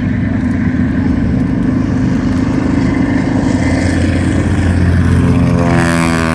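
Grumman Avenger's 14-cylinder Wright R-2600 radial engine running at high power, its pitch dropping sharply near the end as the aircraft passes by.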